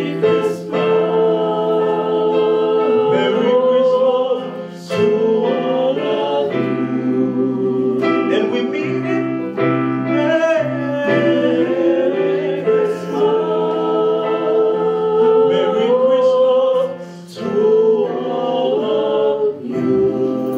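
A five-man vocal group singing together in harmony into handheld microphones, with held chords that shift and swell, briefly dropping away about 17 seconds in.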